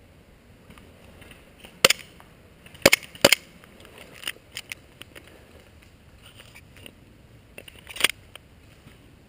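A few sharp, loud snaps, the loudest about 2, 3 and 8 seconds in, with fainter clicks scattered between them.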